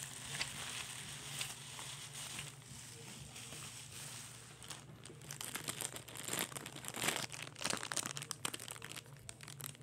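Plastic wrapping crinkling and rustling as a toy train engine is unwrapped by hand, with the crackles coming thicker and louder in the second half.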